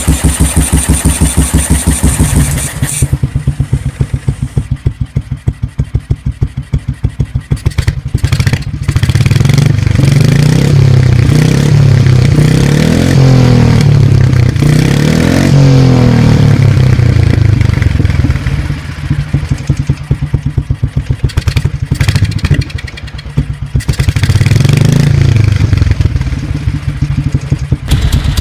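1955 BMW R25/3's 247 cc single-cylinder OHV four-stroke engine running, its exhaust pulsing steadily. It settles to a slower idle after a few seconds, then is revved up and down several times, the exhaust note rising and falling and easing back between blips.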